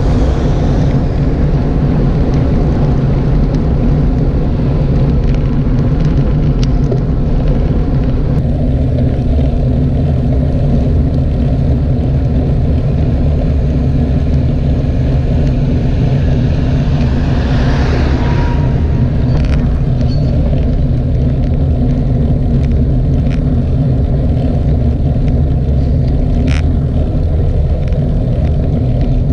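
Steady wind rumble on the microphone of a bike-mounted camera, with road-bike tyre noise on tarmac, riding into a headwind. A little over halfway through, a tractor towing a loaded trailer passes the other way, a brief swell of noise.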